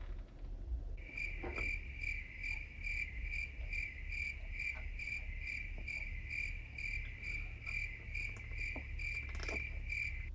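Cricket chirping in a steady, even rhythm of about three chirps a second, starting abruptly about a second in and cutting off suddenly at the end.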